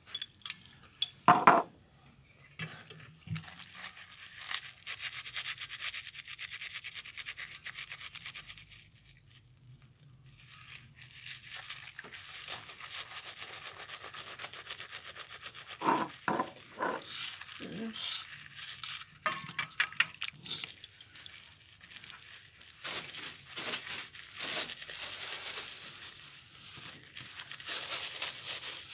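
A dirty penny being scrubbed by hand in a bowl: fast, scratchy rubbing in long spells, with a pause about a third of the way in.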